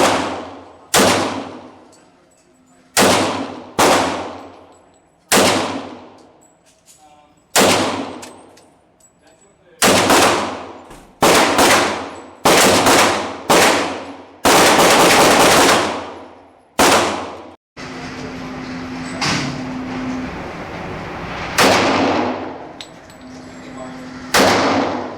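Pistol shots from a Tisas 1911A1 .45 ACP firing 230-grain rounds: about a dozen sharp reports, each ringing out, spaced from half a second to two seconds apart. After a steady hum comes in behind them, a few more shots follow, slower.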